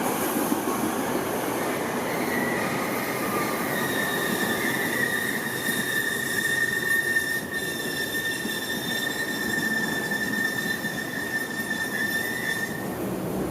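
Tobu Tojo Line electric train braking hard to an emergency stop: a loud running rumble with a steady, high-pitched brake and wheel squeal that begins about two seconds in and cuts off shortly before the end, as the train comes to a halt.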